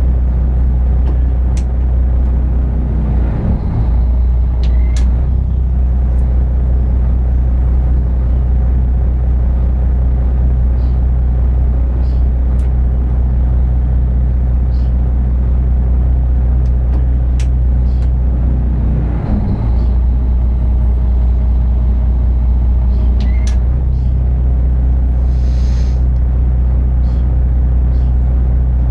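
Inland motor cargo barge's diesel engine running at cruising speed, a loud, steady low drone that wavers briefly twice.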